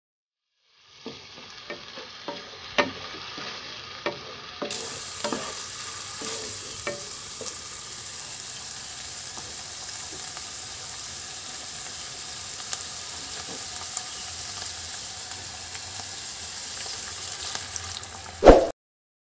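Beef and garlic sizzling steadily in a hot frying pan, with a wooden spatula knocking and scraping against the pan several times in the first few seconds. Near the end, a short, loud burst of sizzling as beef stock is poured into the hot pan, then the sound cuts off.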